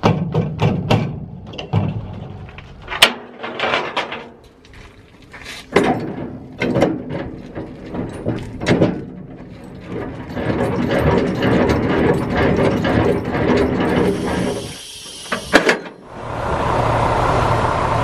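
Metal clanks and knocks as the air lines are unhooked from a semi-trailer, then the trailer's landing-gear crank turning with a steady rattling clatter, a short hiss, and from about two seconds before the end a truck's diesel engine running steadily.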